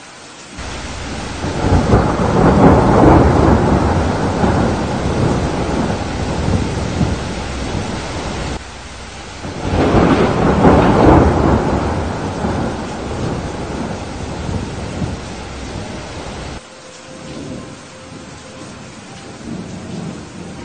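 Thunderstorm: two long rolls of thunder over steady rain. The first swells about two seconds in and the second about ten seconds in, each rumbling for several seconds before cutting off abruptly, which leaves the rain.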